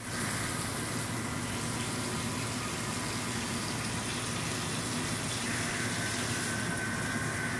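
HAAS VM-3HE vertical machining center milling a metal block, the spindle and end mill cutting steadily under a hissing, splashing coolant spray. About five and a half seconds in, a high steady whine joins the cut.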